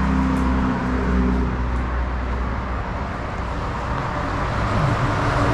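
Steady noise of road traffic, with a vehicle's engine hum in the first couple of seconds and again near the end.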